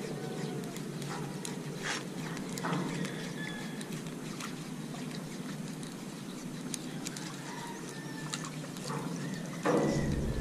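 Steady low outdoor rumble with faint bird chirps over it and a few short ticks. A low thump near the end is the loudest moment.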